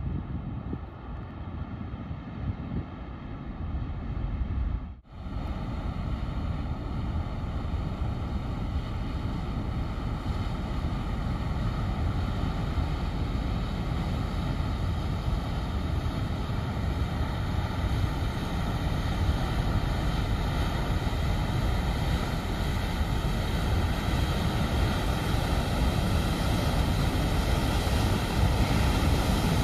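Viking XPRS ferry passing close through brash ice: a steady engine hum over a rushing noise of the hull pushing through ice and water, growing louder as the ship nears, with wind on the microphone. The sound cuts out for a moment about five seconds in.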